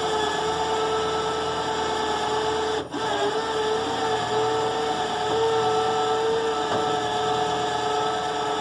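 Cheap Harbor Freight electric winch running under load with a steady whine, reeling in cable to pull a loaded truck-bed slideout back in. The whine cuts out for an instant about three seconds in, then carries on.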